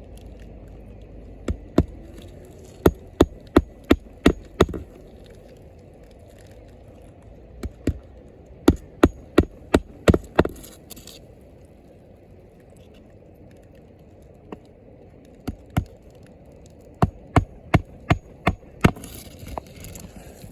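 Hammer driving roofing nails into asphalt shingles: three runs of sharp strikes, about three a second, each run a handful of blows as a nail is set flush.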